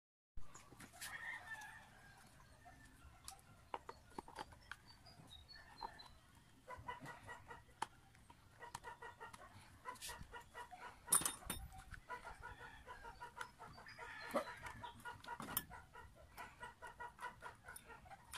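Chickens clucking in the background, with sharp clicks and taps of a screwdriver and metal parts being handled; the loudest click comes a little past the middle.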